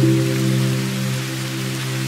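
Slow, soft music of long held low notes, a new note entering right at the start, over the steady hiss of falling rain.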